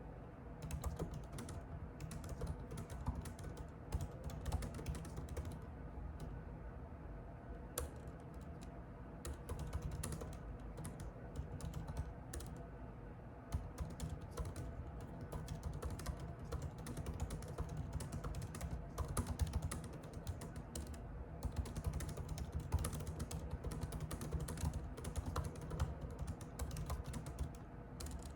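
Typing on a computer keyboard: a fast, irregular run of key clicks with brief pauses every several seconds.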